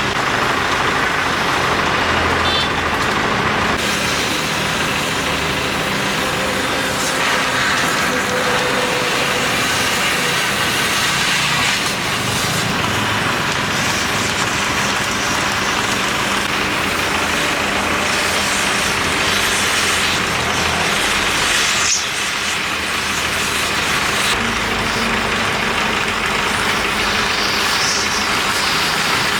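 Heavy diesel machinery running steadily and loudly, with a short dip in level about three-quarters of the way through.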